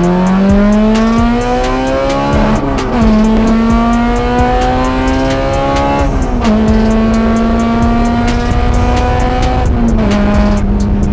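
A Honda K20Z3 2.0-litre four-cylinder i-VTEC engine with a 3-inch stainless exhaust, pulling hard under acceleration. The revs climb steadily and drop sharply at three upshifts, about two and a half, six and ten seconds in.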